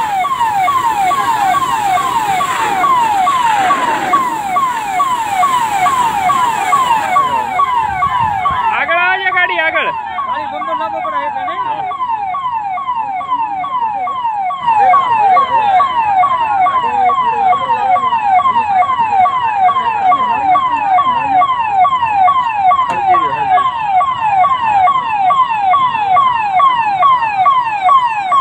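An emergency vehicle's electronic siren sounding a fast, repeating downward sweep, about two sweeps a second, louder from about halfway through. A steady hiss underneath stops just before a third of the way in, and a brief warbling tone follows.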